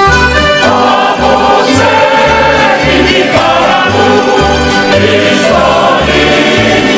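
Corfiot kantada: several voices singing together in harmony, backed by string accompaniment with a bass note on each beat, about two a second.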